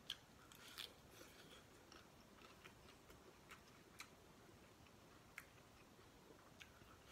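Very quiet eating sounds: soft chewing of noodles and herbs with a scattering of small, sharp clicks from chopsticks and a porcelain spoon working in a glass bowl.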